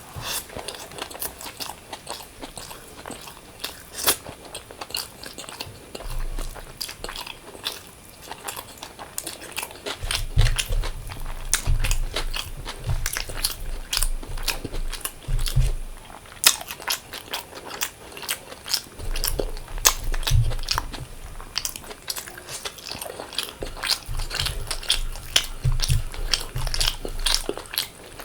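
Close-miked eating sounds: biting and chewing food, with many sharp mouth clicks and crunches coming in quick succession.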